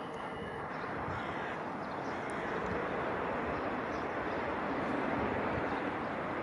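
Airliner jet engines at an airport, heard from a distance as a steady roar that swells a little about five seconds in.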